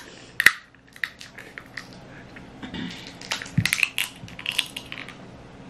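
Eating sounds: a person chewing snow crab and sucking on her fingers, a string of irregular clicks and smacks, the sharpest about half a second in.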